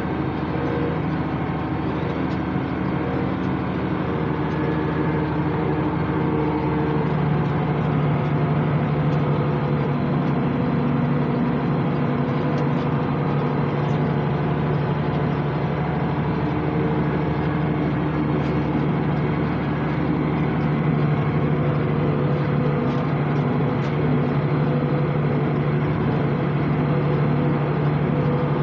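International 886 tractor's six-cylinder diesel engine running steadily under load while baling hay.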